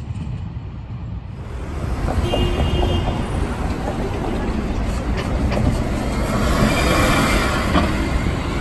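Iveco intercity bus running through a street junction and pulling away, its engine and tyre noise over city traffic; louder from about two seconds in.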